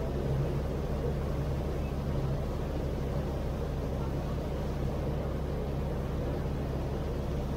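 Passenger boat under way, its engine giving a steady low drone.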